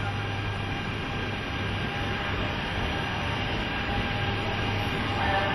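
EF65 electric locomotive pulling slowly into the platform: a steady low hum and rumble under a wash of station noise. Faint high tones creep in near the end.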